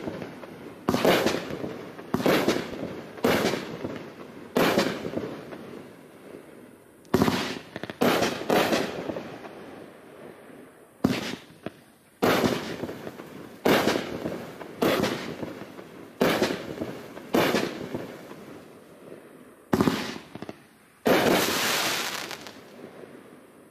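Keep it Gangsta consumer firework cake firing aerial shots: about sixteen sharp bangs, roughly one a second with a couple of pauses, each dying away over about a second. A longer, noisier burst comes near the end.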